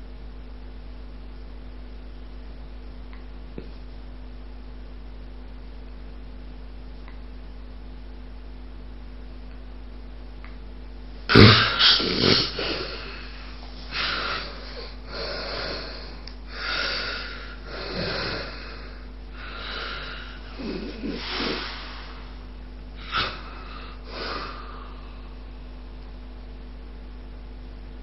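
A sleeper with obstructive sleep apnea: about eleven seconds with no breath sound over a steady electrical hum, the pause in breathing, then a sudden loud snort and a run of quick, uneven snoring breaths as breathing resumes.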